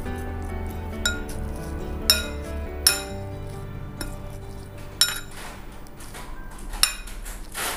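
Steel spoon clinking against a bowl while stirring a creamy corn and nacho mixture, about five sharp clinks, over background music.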